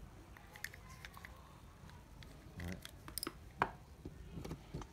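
Scattered light clicks and taps from a small graphite spinning fishing reel being handled, the sharpest about three and a half seconds in.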